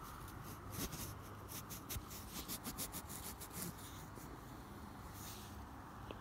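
A dirt-covered Indian Head cent rubbed back and forth on the denim of a pair of jeans to clean its date: faint, quick, scratchy strokes that thin out after about four seconds.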